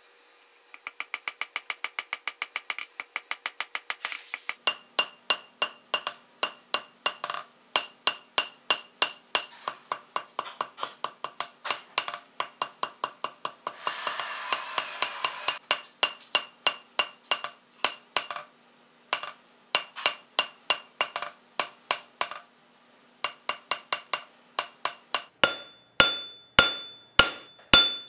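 Hand hammer striking a red-hot wrought-iron san mai knife blade on an anvil: a fast run of blows at first, then a steady series of strikes with short pauses. There is a brief hiss midway, and the last few blows ring out clearly off the anvil.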